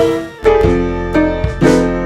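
Background music: piano playing notes and chords over a steady bass, struck about every half second.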